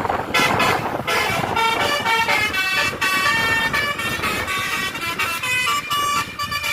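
Bus telolet horn, a multi-tone Basuri air horn, playing a quick tune of stepped notes that change several times a second, over a rush of traffic noise in the first second.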